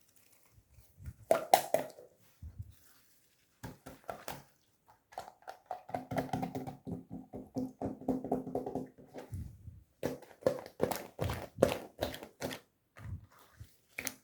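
Marbled slime being squished and poked by hand, giving bursts of sharp wet clicks and pops. From about five seconds in a steady low tone runs for some four seconds under the clicking.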